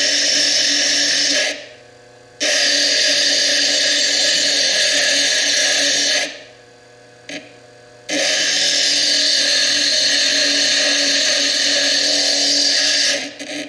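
Foredom bench lathe's slitting disc grinding into the white chalcedony overburden of a fire agate stone, a loud, steady high grinding hiss. It runs in three long passes, broken twice as the stone is lifted off, while the lathe motor keeps humming in the gaps.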